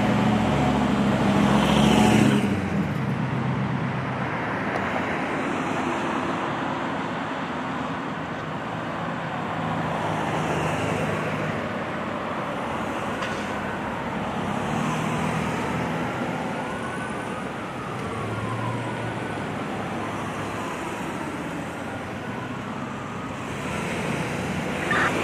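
Road traffic, with a heavy vehicle's engine rumbling loudly over the first two seconds or so. A fire engine's siren then wails faintly in the distance, rising and falling, through the middle stretch.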